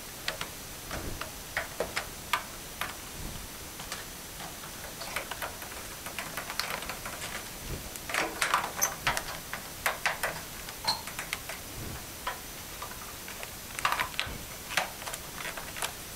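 Protective plastic cover being peeled off a new LED light fixture: irregular small crackles and clicks, coming thickest about halfway through and again near the end.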